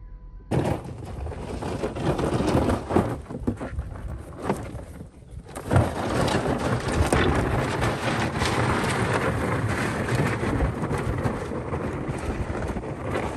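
Wind buffeting the microphone, with knocks and scrapes of the removed stock plastic fender flares being handled into a cardboard box.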